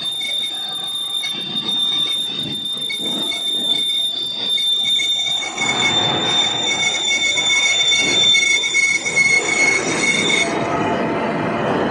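Lathe cutting tool squealing against a rolling mill bearing chock as it cuts the metal. It is a steady high-pitched squeal with a second, pulsing tone over a scraping grind, and the squeal stops about ten and a half seconds in.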